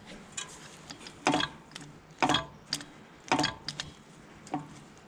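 Sharp metal clicks and clanks, about one a second with some lighter ticks between, a few with a brief metallic ring, as the brake linkage and return spring on a 1955 Fordson Major tractor are worked by hand.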